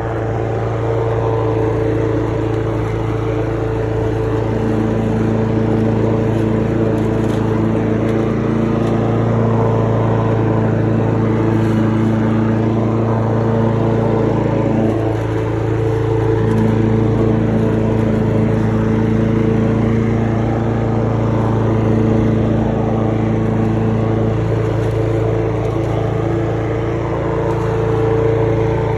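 Lawn mower engine running steadily while cutting grass.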